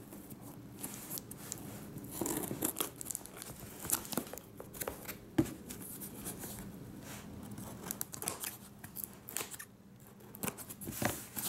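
Scissors slitting the packing tape on a cardboard box: irregular short snips, scrapes and rustles of tape and cardboard, with one sharper click about five seconds in.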